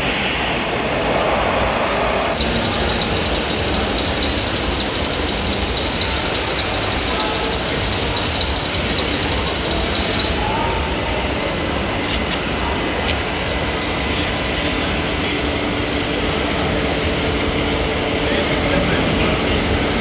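Steady hall din of crowd chatter mixed with the running of radio-controlled model trucks, with a faint high steady whine for several seconds after the start.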